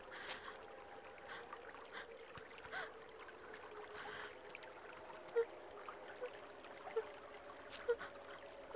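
Faint, quiet background ambience: a soft steady tone under a light hiss, with a few short soft pips in the second half, each a bit under a second apart.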